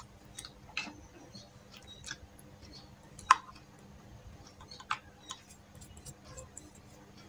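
Scattered small clicks and taps from handling makeup items and a hand mirror. The sharpest click comes about three seconds in and another near five seconds.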